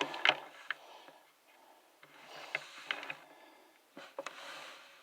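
Plastic action figures being handled and posed: a run of light clicks and taps with patches of rustling.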